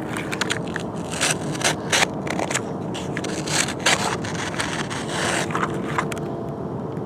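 Toy excavator's bucket digging and scraping into sand and dirt: irregular gritty scrapes and crunches.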